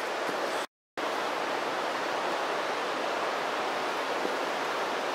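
Small wood-burning gasifier camp stove burning with a steady, even rushing noise. The sound cuts out completely for a moment just under a second in.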